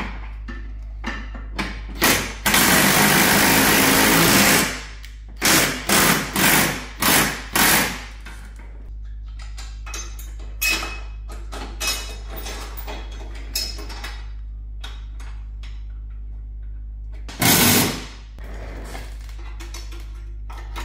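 Cordless impact wrench driving subframe bolts home. It runs once for about two and a half seconds, then gives five short hammering bursts and another burst near the end, with light clicks of hand tools in between.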